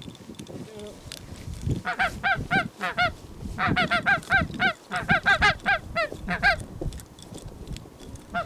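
Barnacle geese calling: rapid series of short, high yapping honks, several a second, starting about two seconds in, with a brief pause, and fading out near the end.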